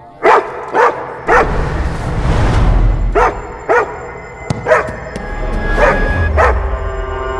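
A dog barking in short yaps, about eight in all, mostly in pairs about half a second apart, over background music with a low rumble.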